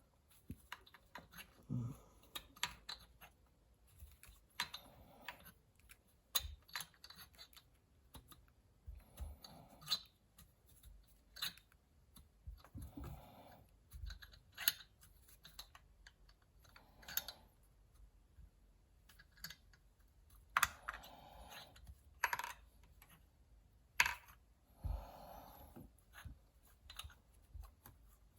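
Thread tap being turned by hand in the exhaust bolt hole of a Stihl 291C chainsaw cylinder: faint, irregular clicks and short scrapes as the tap cuts metal.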